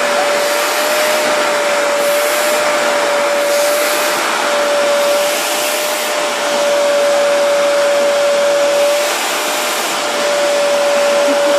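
Vacuum cleaner running steadily: a loud motor whine over rushing air, dipping briefly about nine seconds in.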